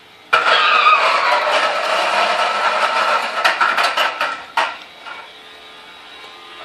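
Toy push lawn mower making its loud mechanical rattling noise as it is pushed, with a few sharp clicks; the noise starts suddenly and stops about four and a half seconds in.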